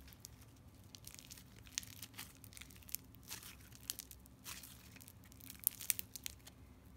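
Crunchy floam slime packed with micro foam beads being stretched and squeezed by hand, giving faint, irregular crunches and crackles, with a few sharper ones near the end.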